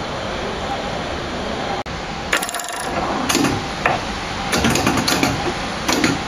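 Steady background hiss with a run of irregular clicking, rattling sounds in quick clusters, starting a couple of seconds in.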